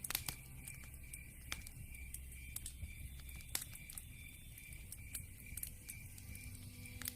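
Wood fire crackling in a fireplace, with irregular sharp pops and snaps.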